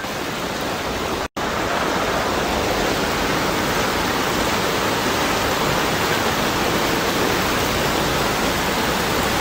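Steady rushing noise of torrential rain and floodwater running through a street, cut off for an instant just over a second in.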